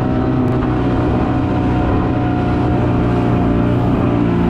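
A boat's motor running steadily at an even speed.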